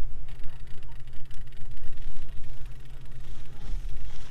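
Boat's outboard motor running steadily at trolling speed, an even low hum.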